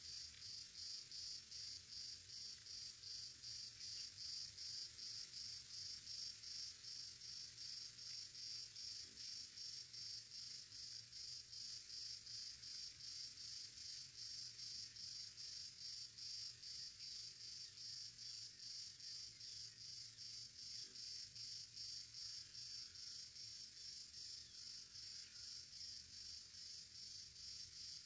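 Faint, steady insect chorus, a high buzz pulsing evenly a few times a second.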